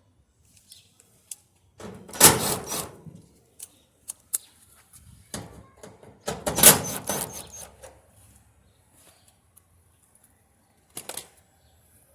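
Two short bursts of clattering metal noise, about four seconds apart, with light clicks between them, as two screws on a Kenmore Elite gas dryer's sheet-metal cabinet are loosened.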